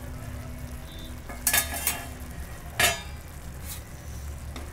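Carrot halwa simmering in milk in a steel kadhai, bubbling with a faint sizzle; the milk has not yet cooked down. Two short, loud metal scrapes or clinks against the pan come about one and a half and three seconds in.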